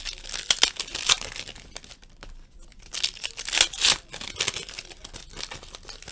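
Foil wrapper of a trading-card pack being torn open and crinkled by hand, in two spells of crackling: one through the first second and one around three to four seconds in.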